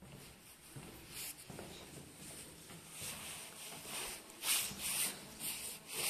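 Footsteps on a tiled corridor floor: soft shoe scuffs in a small echoing space, sparse at first, then about two a second and loudest in the last two seconds.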